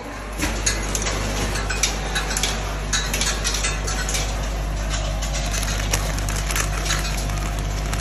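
Plastic bags packed with small microduct connectors crinkling and clinking as they are handled in a crate, in irregular crackling clicks, over a steady low hum from the packing machine.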